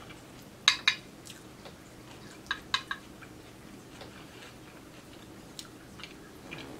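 Metal fork clinking and scraping against a plate while cutting through enchiladas: two sharp clinks about a second in, three more just before three seconds, then a few fainter taps.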